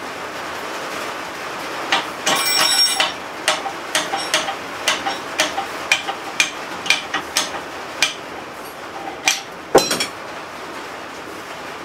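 Hand hammer driving a hot punch through a railroad spike on the anvil, each blow with a metallic ring. A quick flurry of strikes comes about two seconds in, then steady blows about two a second, then two harder strikes near the end, the last the loudest. The punch goes through and smacks the edge of the anvil's pritchel hole.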